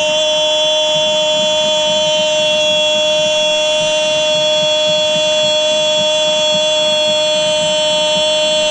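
A football commentator's drawn-out goal cry, 'Gooool', held on one steady, loud note for about nine seconds. Crowd noise is faint beneath it.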